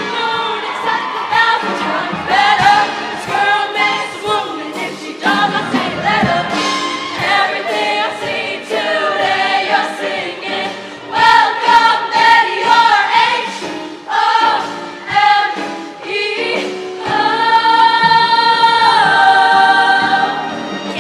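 Show choir singing with band accompaniment, many voices in full harmony, building to a long held chord about three quarters of the way through.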